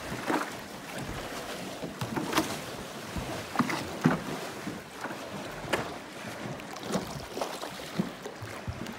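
Choppy lake water slapping and splashing at the waterline, irregular sharp splashes over a steady wash of waves.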